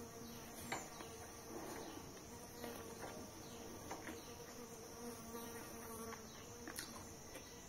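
A faint steady buzzing hum with a few soft clicks of a person chewing food.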